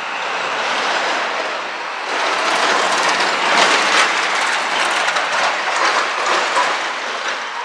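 A rail vehicle passing, its wheels clattering over the rails; the noise grows louder about two seconds in and eases off near the end.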